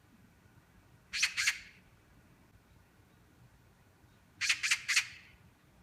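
Magpie chattering in harsh squawks: a quick burst of two or three notes about a second in, then a burst of four notes about four and a half seconds in.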